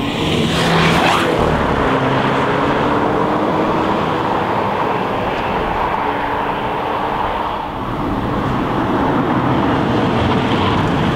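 The 2013 Audi A4's 1.8-litre turbocharged four-cylinder engine accelerating, its note climbing steadily in pitch. It dips briefly about eight seconds in, then climbs again.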